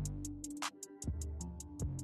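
Background electronic music with a steady beat: quick hi-hat ticks, deep kick-drum thumps, and held synth and bass notes.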